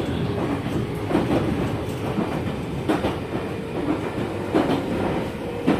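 Meitetsu 5000 series electric train heard from inside the car while running: a steady rumble with a faint motor hum, and wheels clicking over rail joints about once a second. The running sound is that of the older 1000 series Panorama Super.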